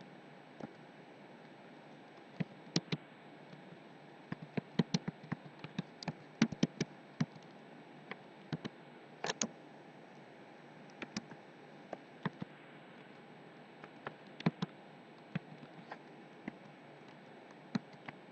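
Computer keyboard keystrokes clicking in irregular bursts separated by pauses as text is typed, over a steady faint hiss.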